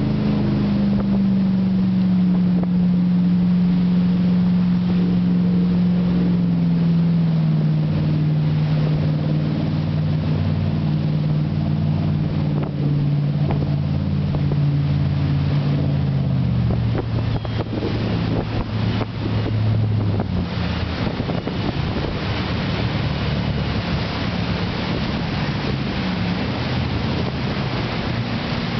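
Motorboat engine running hard through whitewater rapids. Its pitch falls slowly over about twenty seconds, then it fades under the steady rush of the rapid, with wind buffeting the microphone.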